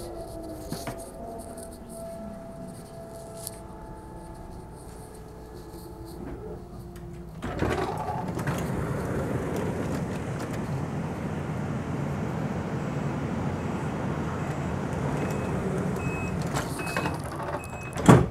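ET423 S-Bahn electric multiple unit slowing to a stop, its traction motors whining in several falling tones. About seven and a half seconds in the passenger door opens with a sudden rush of louder sound; near the end the door-closing warning beeps sound about once a second and the door shuts with a loud thump.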